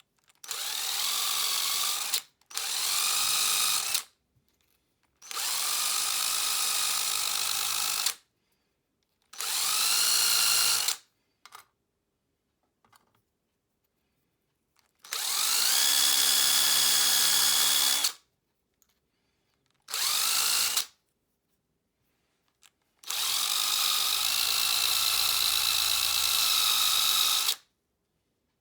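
Small electric power tool polishing handmade metal lure spoons, switched on in seven short bursts. Each time the motor spins up with a rising whine, runs steadily for one to four seconds, then cuts off abruptly.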